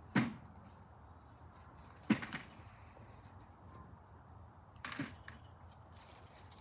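Three sharp knocks or clacks, about two seconds and then three seconds apart, each brief with a short rattle after it.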